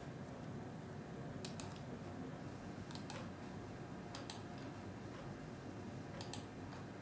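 Light clicking at a desk computer: four pairs of quick clicks spread over several seconds, over a faint steady room hum.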